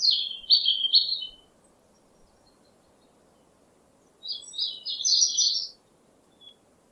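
A songbird singing two short, rapid warbled phrases, one at the start and one about four seconds in, over a faint steady hiss.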